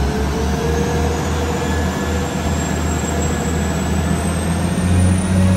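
Class 175 diesel multiple unit pulling away from the platform: its underfloor diesel engines drone under load, with a faint whine rising slowly in pitch as it gathers speed.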